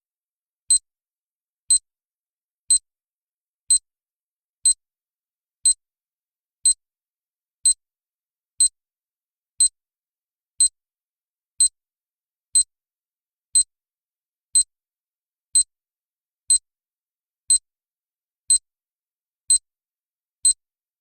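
Countdown timer sound effect: a short, high tick once a second, evenly spaced, with silence in between.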